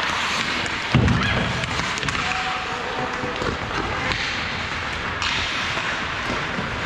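Hockey game noise: a steady wash of rink sound with faint distant voices, and one loud thump about a second in.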